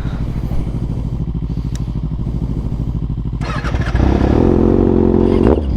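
Kawasaki ZX-6R's inline-four engine ticking over with an even pulse, then revving up about three and a half seconds in and running louder as the bike pulls away, with a brief dip near the end.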